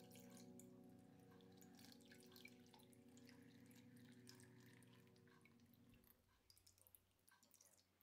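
Faint trickling and dripping of water poured in a thin stream from a glass bottle into the stone basin of a tabletop fountain, with many small splashes. A faint held tone underneath fades out about six seconds in.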